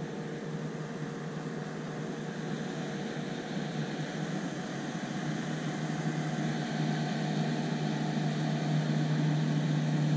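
A boat motor hums steadily with a low, even tone, growing gradually louder.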